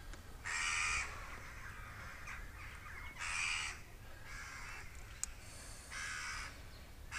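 A crow cawing repeatedly, four or five harsh caws of about half a second each, a second or more apart.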